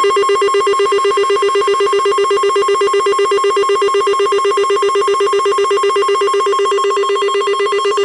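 NOAA weather alert radio sounding its built-in alarm for a severe thunderstorm warning: a loud electronic beep pulsing rapidly, about eight times a second, without a break.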